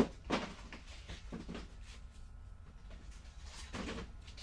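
A few light knocks and handling noises, as of grinding wheels being picked through and lifted, over a steady low hum.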